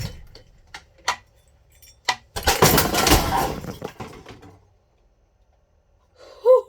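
Ceiling fan being struck, a few light clinks, then about two and a half seconds in a long clattering crash as the fan comes down off its mounting bracket, dying away over about two seconds. Two short vocal exclamations near the end.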